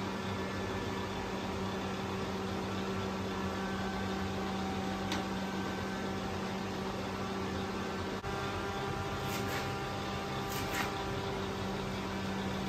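A steady mechanical hum with a low tone over a haze of hiss, broken by a few faint light clicks.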